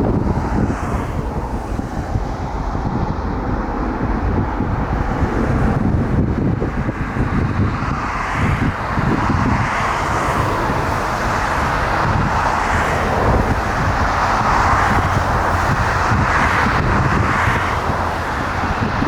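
Steady jet airliner engine noise that builds from about eight seconds in, with wind buffeting the microphone.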